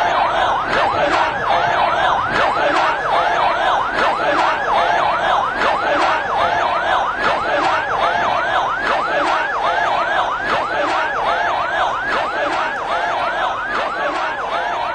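Emergency-vehicle sirens in a fast yelp, the pitch sweeping up and down several times a second, with more than one siren overlapping.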